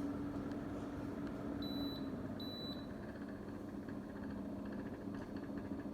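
Gorenje split-system air conditioner indoor unit running at low power with a steady hum and a fast rattling, knocking noise, a fault in the unit. Two short high beeps sound about two seconds in.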